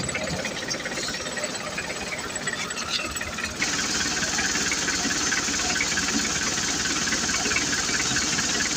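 Mitsubishi 4D56 four-cylinder diesel engine running with a steady diesel clatter, while its freshly repaired alternator is tested for charging. About three and a half seconds in it gets louder, with an added hiss.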